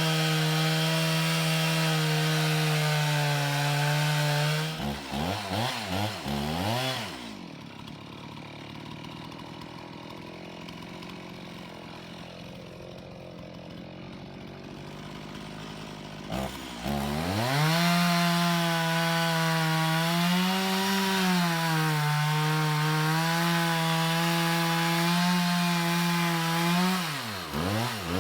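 Gas chainsaw cutting into the trunk of a dead tree at full throttle for about five seconds, then easing off and idling quietly for about ten seconds. It revs back up to full throttle and cuts again for about ten seconds, then drops back near the end.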